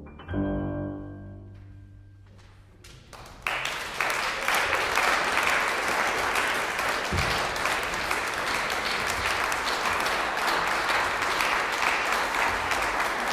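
Piano and string chamber orchestra sound a final chord that rings and fades over about three seconds. Then, about three and a half seconds in, the audience bursts into steady applause that carries on to the end.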